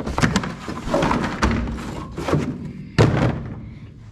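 Several knocks and thumps, the loudest about three seconds in.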